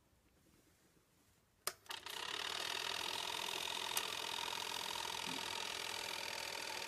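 Near silence, then a couple of sharp clicks as a 1960s Sekonic 8mm cine projector is switched on; its motor and film mechanism start and run steadily. Another click about four seconds in, as a hand works the rewind arm.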